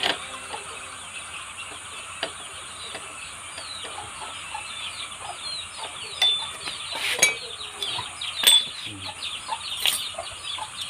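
Birds chirping in a rapid, dense chatter of short calls, thickening a few seconds in. A few sharp metallic clinks of hand tools on the scooter's wheel fittings come through, the loudest about seven and eight and a half seconds in.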